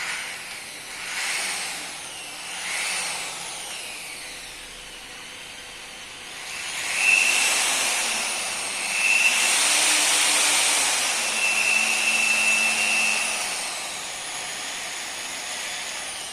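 Stanley SP 137 rotary car polisher's electric motor running, a fairly smooth sound. It swells and changes pitch twice early on, then runs louder with a steady high whine through the middle before easing back to a lower steady run.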